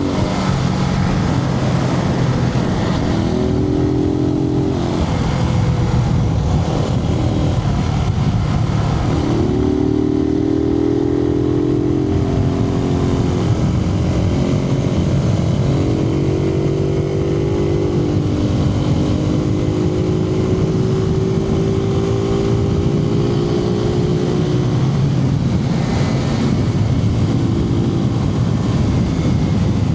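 Suzuki TU250X single-cylinder engine running while riding, heard from inside the helmet, over a steady low wind rumble. Its pitch climbs several times as the bike accelerates: about 3 s in, about 9 s in, and in a longer pull from about 15 s.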